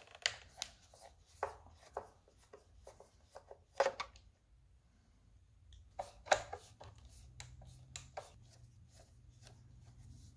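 Faint clicks, taps and scrapes of a Phillips screwdriver backing screws out of a plastic motorcycle mirror housing while it is handled, with a couple of louder clicks about four and six seconds in.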